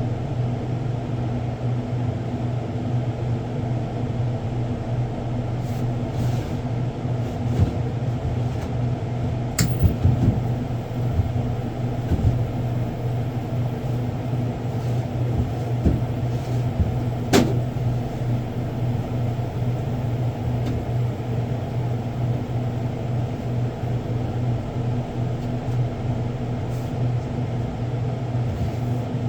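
Steady low machine hum, with a few sharp clicks and knocks from stock being handled, the clearest about ten and seventeen seconds in.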